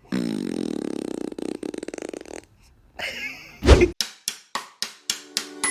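A baby's fart: one long, buzzing, fluttering rasp lasting about two and a half seconds. After a short pause comes a low thump, then a run of short swishes that come faster toward the end.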